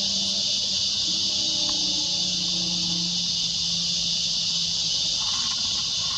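Steady high-pitched chorus of insects, unchanging throughout, with faint held tones lower down.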